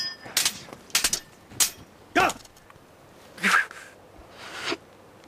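Swords clashing in a quick run of about five sharp strikes, one leaving a brief metallic ring, followed by a man grunting twice.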